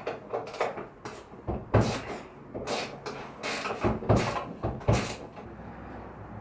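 Nissan 240SX hood being lowered onto its hinges and shifted into place: a run of irregular metal clicks and clunks, with heavier knocks near two seconds in and a few more around four to five seconds.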